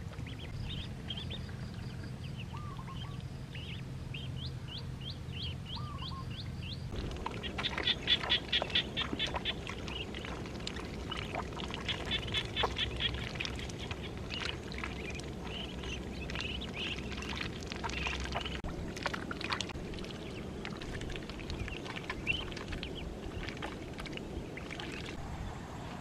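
A flock of ducklings peeping, with quick runs of high, rapid peeps. Fainter high rising chirps come first, and the sound changes abruptly about seven seconds in.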